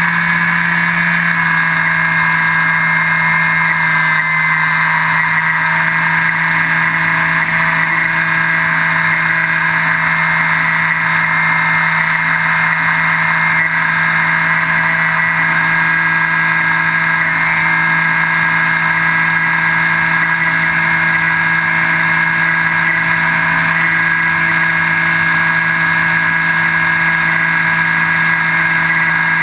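Brushless electric motor and pusher propeller of a Skywalker 1680 FPV wing droning steadily in flight, heard from the GoPro on board, with a rush of air over the airframe.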